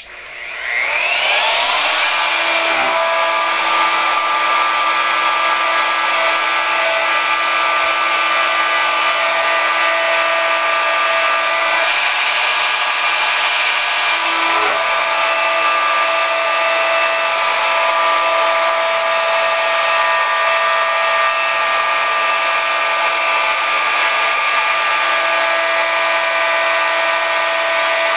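Ridgid R2901 router switched on, its motor spinning up with a rising whine over about two seconds, then running steadily at speed while a 90-degree carbide V-groove bit engraves letters freehand into wood.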